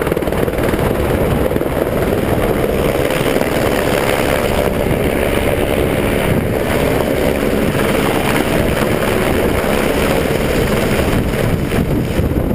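Small helicopter flying low and close: its rotor and engine give a loud, steady noise, with wind buffeting the microphone.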